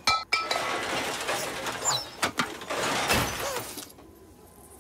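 Cartoon sound effects of rummaging in a junk pile: cans, metal and debris clattering and clinking, dying down about four seconds in.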